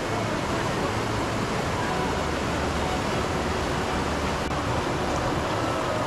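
Whitewater rapid rushing over rocks, a steady, unbroken noise.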